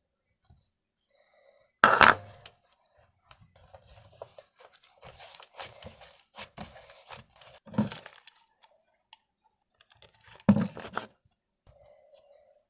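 Close handling noises: irregular tearing and crackling, with two loud knocks, one about two seconds in and one near the end.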